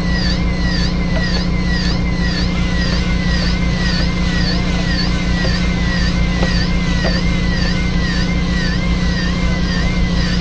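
Fishing boat's engine running steadily with a low hum, overlaid by a high whine that dips and rises in pitch about one and a half times a second.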